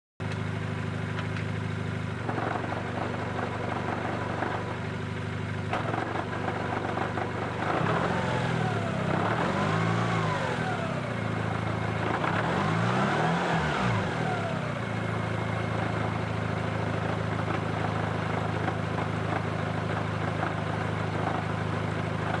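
Daihatsu Copen running on the road with a steady engine drone. In the middle a wavering noise twice swings up and down in pitch: the abnormal driving noise being chased, suspected to come from the differential, a driveshaft or a hub bearing.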